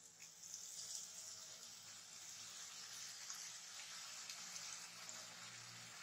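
Faint, steady sizzling of grated-potato pakodi deep-frying in hot oil in a kadhai.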